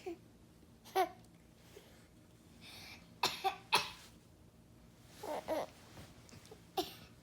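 A person coughing several times in short bursts, with another person laughing and babbling between the coughs.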